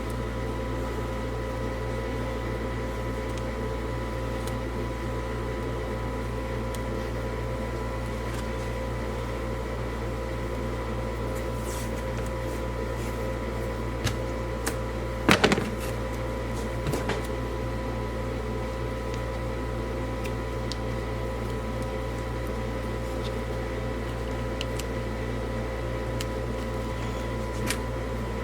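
Steady electrical room hum with a few steady tones in it, broken by a handful of short clicks and knocks from handling, the loudest about halfway through.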